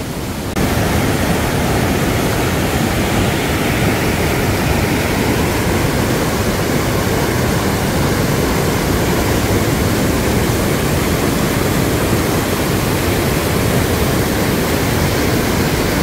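Whitewater of a swollen mountain stream rushing and churning between boulders. It is a loud, steady rush of water that gets louder about half a second in.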